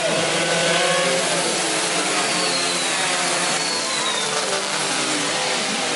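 A pack of two-stroke underbone race motorcycles running at high revs, several engines overlapping, their pitches rising and falling as the bikes accelerate and shift.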